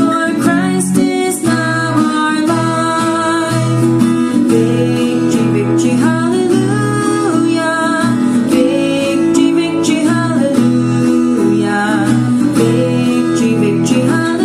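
Music: a song with acoustic guitar and a singing voice carrying a melody.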